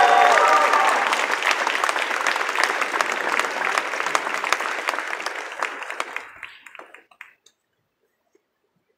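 Audience applauding, with a few cheering voices at the start; the clapping thins out and dies away over about six seconds, leaving silence near the end.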